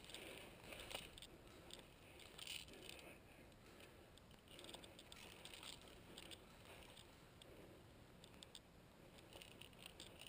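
Faint rustling and crackling of footsteps in dry pine needles and leaf litter, coming in scattered clusters.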